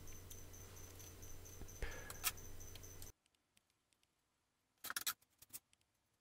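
Faint scrapes and clicks of a small trowel working fresh cement in a plastic DVD case, a few short clicks at a time. A steady low background hum cuts out abruptly about three seconds in, and a short cluster of clicks follows about five seconds in.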